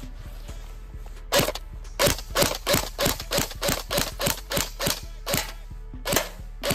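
Airsoft gun firing single shots in quick succession, about three a second, after a short pause at the start, then slowing to a few spaced shots near the end.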